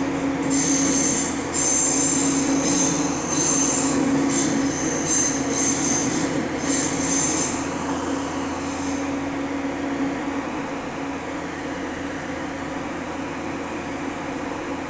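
Nagoya Municipal Subway Tsurumai Line 3000 series electric train running in the tunnel, heard from inside the car: a steady hum over the running rumble. Over the first seven or so seconds high-pitched wheel squeal comes and goes, then dies away.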